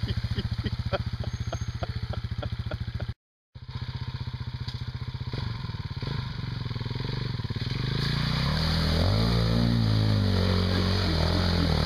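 Single-cylinder dual-sport motorcycle engine, a KTM 640 LC4 Adventure, thumping at a steady beat. It cuts out briefly about three seconds in, then revs up and down as the bike ploughs through a muddy puddle, with water splashing.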